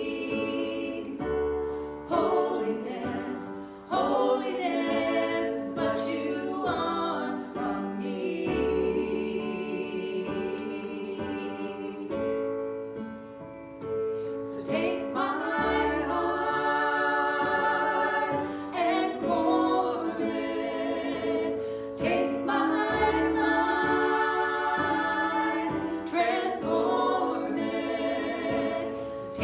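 A gospel worship song: voices singing held, pitched lines over sustained instrumental chords with low bass notes. The song goes softer for a couple of seconds about twelve seconds in, then comes back up.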